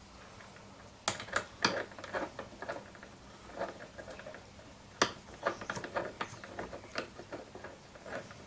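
Small metal hardware, nuts and washers, clicking and clinking as it is handled and fitted by hand, in a string of short irregular clicks with one sharper click about five seconds in.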